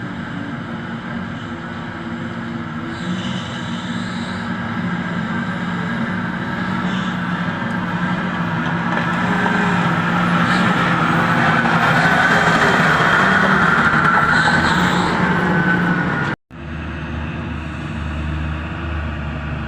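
Engines of heavy mining machinery, an excavator and haul trucks, running under load. A whine swells and fades in the middle, and the sound cuts off abruptly about 16 seconds in, giving way to a deeper engine rumble.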